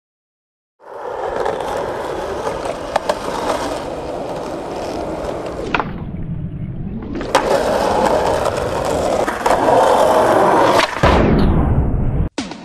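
Skateboard wheels rolling on rough concrete and asphalt, starting after a moment of silence. About six seconds in comes the sharp pop of the tail, then a hush of about a second while the board is in the air, then the clack of the landing and more rolling. A second trick lands with another clack near the end.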